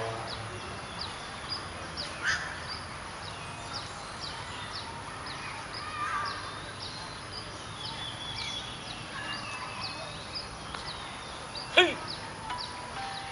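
Birds calling outdoors: a steady run of short, high chirps repeating about twice a second, a few scattered calls, and one loud, caw-like call about twelve seconds in, over a faint low background hum.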